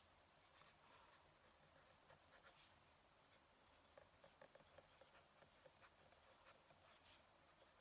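Fountain pen nib scratching faintly on paper in short strokes and ticks, with a quick run of them about four seconds in.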